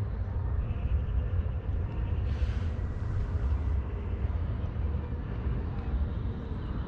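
Steady low outdoor rumble with a short hiss about two and a half seconds in.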